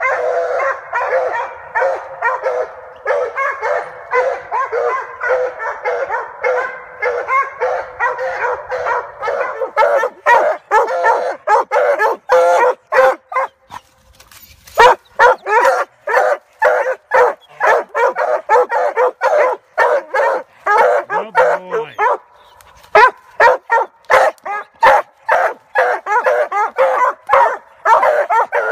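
Coonhounds barking treed at the foot of a tree: fast, repeated barks from more than one dog that overlap in the first half. There is a short lull about halfway through, and then the barking picks up again as separate barks, several a second.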